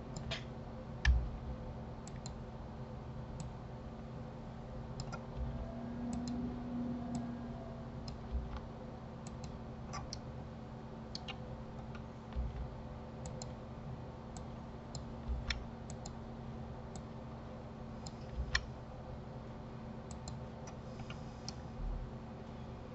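Irregular, sharp clicks of a computer mouse and keyboard being worked, a few every second or two, over a steady low hum.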